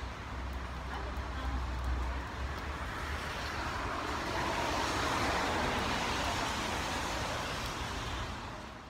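Road traffic noise: a steady low rumble, then a swell of passing-vehicle road noise from about four seconds in.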